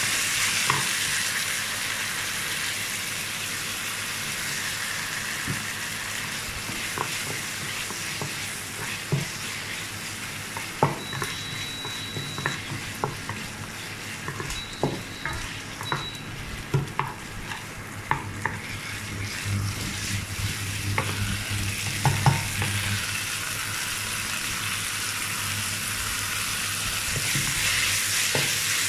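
Diced chicken sizzling as it stir-fries in a wok, with a wooden spatula scraping and knocking against the pan at irregular moments.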